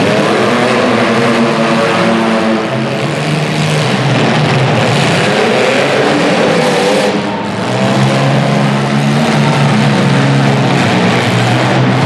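Demolition derby cars' engines running and revving, several at once, their pitch rising and falling.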